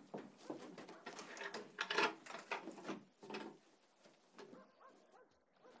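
A dog barking in short, irregular bursts.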